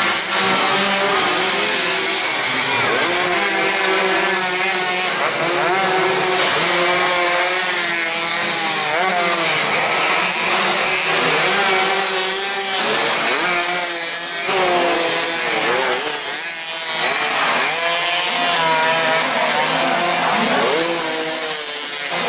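Several small racing underbone motorcycles at high revs, their engines buzzing and overlapping, the pitch climbing and dropping again and again as they accelerate, shift and brake through the corners.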